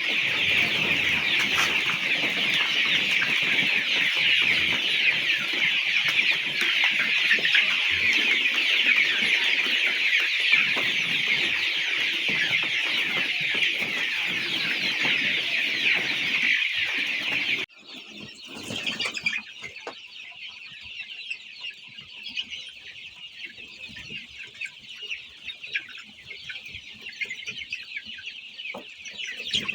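A large flock of chickens calling: a dense, continuous chatter of peeps and clucks. It drops off suddenly about 18 seconds in to a quieter stretch of the same flock sound.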